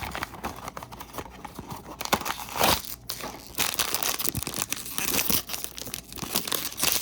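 Hands tearing open a blind-box mini-figure package, with irregular rips and crinkling and one louder rip about two and a half seconds in.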